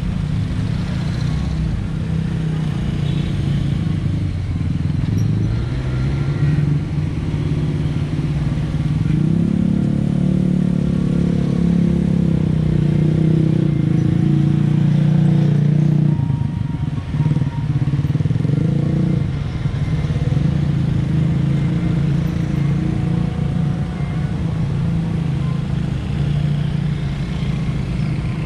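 Road traffic at a railway level crossing: motorcycle and car engines passing over the tracks one after another, loudest about a third to halfway through.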